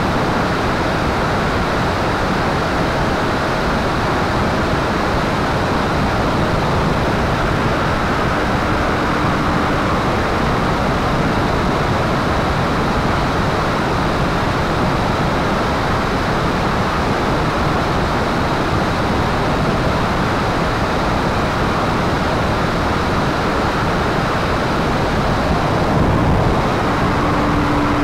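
A P-51 Mustang's engine and propeller running steadily in flight, heard through an onboard camera's microphone together with a heavy rush of wind.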